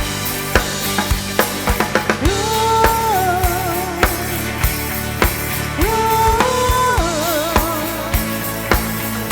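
A live band playing an instrumental break: a drum kit beating steadily under bass, with a lead instrument playing long held notes that waver in vibrato, coming in about two seconds in and again near six seconds.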